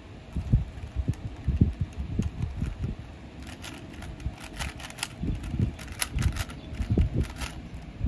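A 3x3 Rubik's cube being turned by hand, its plastic layers clicking and rattling, with a run of quick sharp clicks from about three and a half seconds in until near the end. Irregular low bumps and rumble sound underneath throughout.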